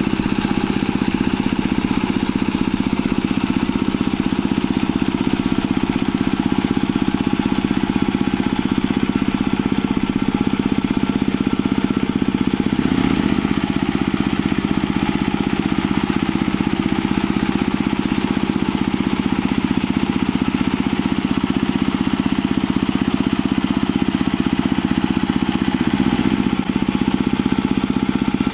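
Two-wheel hand tractor's single-cylinder diesel engine running steadily under load as its rotary tiller churns wet paddy mud. The engine note sags briefly twice, near the middle and near the end, as the load changes.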